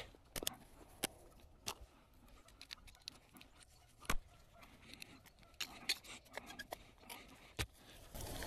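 Footsteps through dry leaf litter and twigs: sparse light crackles and clicks, a few in quick succession early on, then scattered with gaps between.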